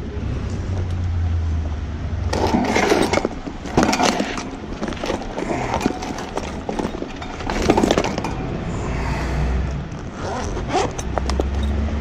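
Metal scraping and clattering from work on an air-conditioner condenser's sheet-metal panels, in three short bursts about two, four and eight seconds in, with a few sharp clicks near the end. A steady low hum runs underneath.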